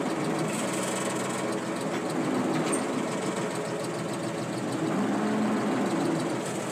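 Farm tractor engine running steadily at low speed while the tractor eases a loaded rear-mounted earth scoop over the ground.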